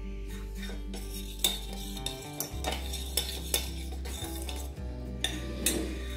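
A steel spoon clinking and scraping against a stainless-steel saucepan while stirring melting ghee, with several sharp clinks spread through.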